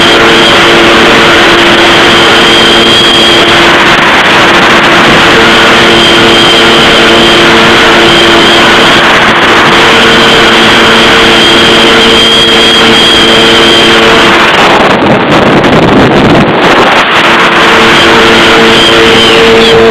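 Jet ski engine running steadily at speed, very loud, under a dense rush of wind and water spray. About fifteen seconds in, the engine's note drops out for a few seconds under the wind and water noise, then comes back.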